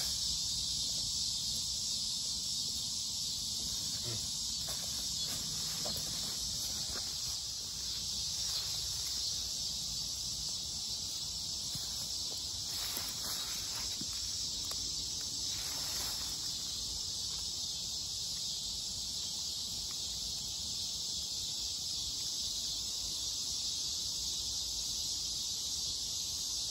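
Steady, high-pitched chorus of insects trilling without a break, with a few brief faint rustles or knocks in the middle.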